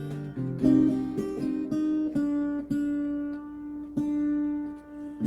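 Acoustic guitar picking a kirtan tune, a run of single notes and strums that start sharply and ring out.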